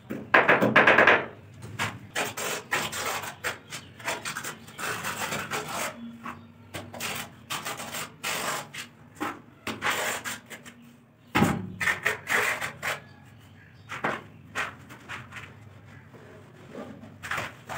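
Tiling work on ceramic wall tiles: an irregular run of rasping, scraping strokes, with a denser burst in the first second, as cement mortar is worked and the tiles are tapped and pressed into place.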